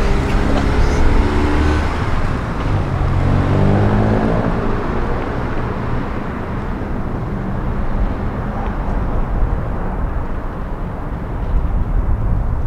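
A car engine pulling away, its pitch rising and falling over the first few seconds, then a steady rushing noise.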